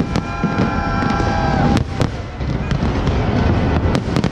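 Aerial fireworks display: a continuous rumble of bursts punctuated by sharp bangs and crackles. In the first second and a half, a cluster of several high, steady whistling tones sounds together, then dies away.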